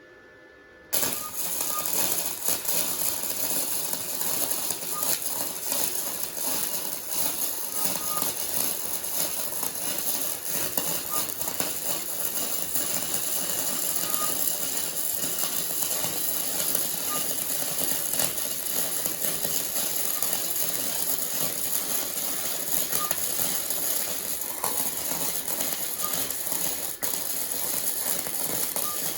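Flux-core arc welding with a Titanium Easy-Flux 125 welder on thin 16-gauge mild steel: the arc strikes about a second in and crackles steadily through one long bead. The bead burns through the thin sheet in one spot, leaving pinholes.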